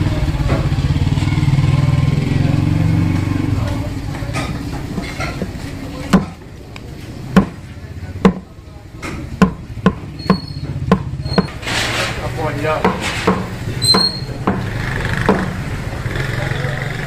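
A low, steady hum fills the first four seconds. After that a knife blade strikes the wooden chopping block in a run of sharp, irregular knocks, about one a second, as beef is cut on it.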